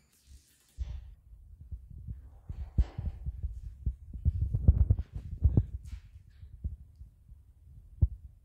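Irregular low thumps and rumble from a handheld phone being carried by someone walking: handling noise on the microphone mixed with footfalls, starting about a second in.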